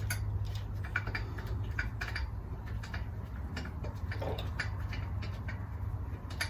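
Light, irregular metal clicks and ticks as the rear-wheel bolts are turned by hand into the hub to start their threads, over a steady low hum.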